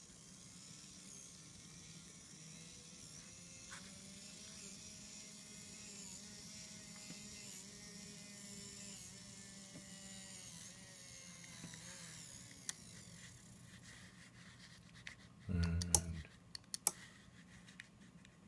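Small electric motor of a model bridge crane's trolley whining faintly as it drives the trolley along the bridge, its pitch wavering slightly, fading out about 12 seconds in. A few seconds later a louder low buzz lasts about a second, followed by several sharp clicks.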